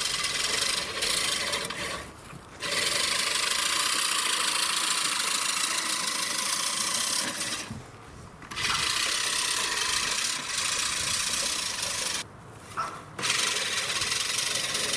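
Push reel lawn mower being pushed through grass: its spinning blade reel makes a steady rasping whir as it cuts against the bed knife. The sound stops briefly three times as the mower pauses.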